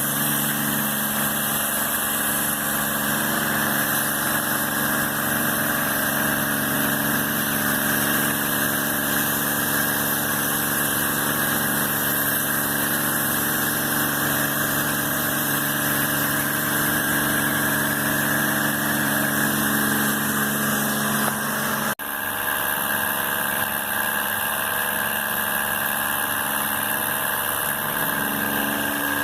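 A machine running steadily: a low hum with a strong hiss over it. It breaks off sharply about two-thirds of the way through and carries on with a slightly changed tone.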